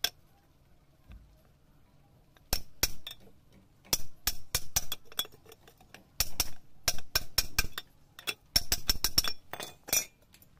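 Hammer blows on a steel pipe used as a drift, driving a new bearing over the shaft into a worm gearbox housing: sharp ringing metallic clinks in quick bursts of several strikes, one single strike at the start and then repeated bursts from about two and a half seconds in until near the end.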